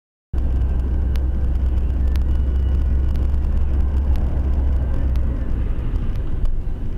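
Car driving, heard from inside the cabin through a dashcam microphone: a steady low engine and road rumble that starts abruptly just after the beginning, with a few faint clicks.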